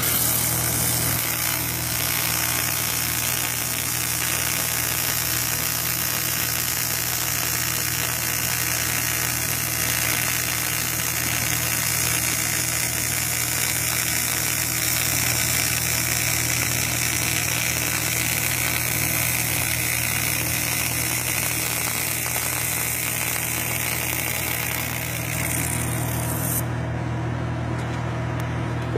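TIG welding arc on aluminum sheet, a steady hiss over a low hum, run at high power along a seam already fused without filler. The arc cuts off near the end while the low hum carries on.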